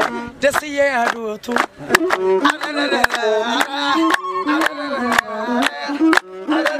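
Ethiopian azmari music: a masinqo (one-string bowed fiddle) with a sung melody and a steady clapped beat about twice a second.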